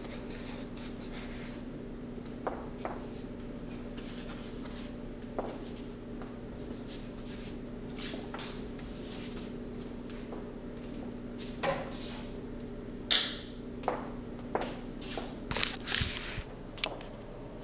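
Paintbrush strokes and dabs on cardboard, soft scratchy rubs, with light plastic handling of the paint container. A steady low hum runs underneath and stops near the end, where a run of clicks and knocks comes as the camera is handled.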